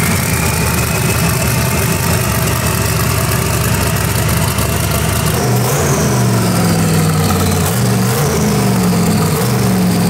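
Twin-turbo Ford Windsor stroker V8 running shortly after being fired up, the first run on its newly installed power distribution modules. It idles steadily at first, then from about halfway its pitch rises and falls a few times as the revs are raised and dropped.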